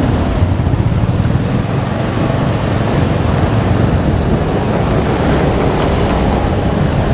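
JR Kyushu 787-series electric limited express train running past close by: a steady, loud rumble with a rush of air noise.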